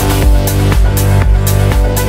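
Progressive house dance music: a steady beat of about two strokes a second under held bass and synth notes.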